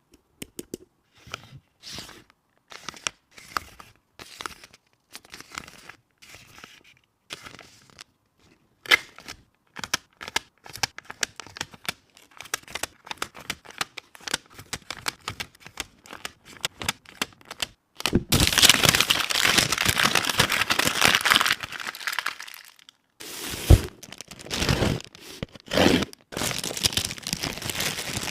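Packaging and label sheets being handled by hand: scattered light rustles and taps, then about two-thirds of the way through a few seconds of loud crinkling and tearing, which after a short pause starts again and runs on to the end.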